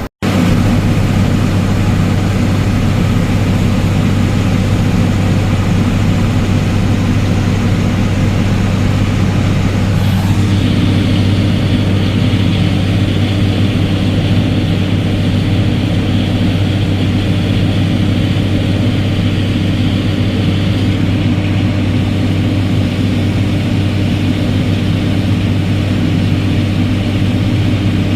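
Heavy diesel farm machinery engine running steadily under harvest work, a constant low drone. About ten seconds in, a higher hissing whine joins it and keeps on.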